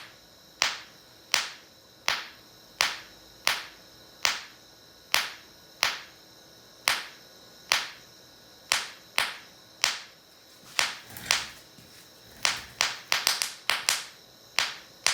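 Electrolysis gas bubbles rising out of soapy water and bursting into a butane torch flame: a string of sharp bangs, about one or two a second, coming much faster in a quick cluster near the end. The pops are loud, continual and rapid fire.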